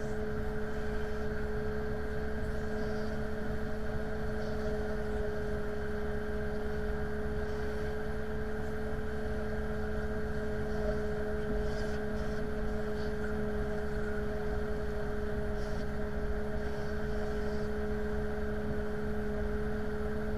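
Steady mechanical drone of an airliner pushback with a towbar tug: a low rumble with a constant hum on top, level and unchanging.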